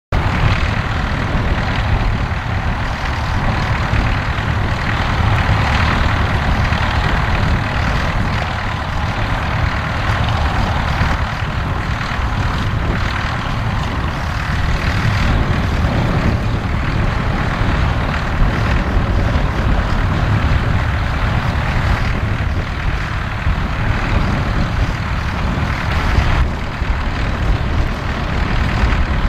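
Vintage Fordson tractor engines running steadily as the tractors pull trailing ploughs through stubble, a continuous engine drone over a low rumble.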